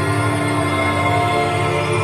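Soft, slow instrumental relaxation music with long held tones.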